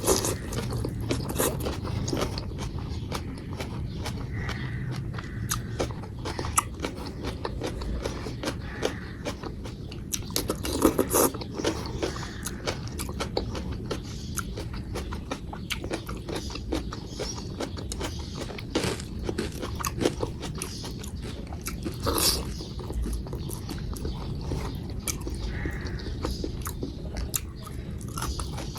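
Close-miked eating of rice with dal, potato curry and salad: continuous chewing and biting with wet mouth sounds and occasional crunchy bites, a few louder ones about eleven and twenty-two seconds in.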